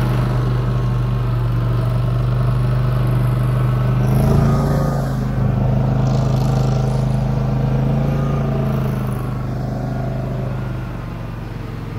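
SM-002 snowmobile's Loncin 30 hp engine running steadily under load as the sled drives through deep powder snow. Its pitch rises a little about four seconds in and settles back a second later, and the sound grows slightly quieter near the end.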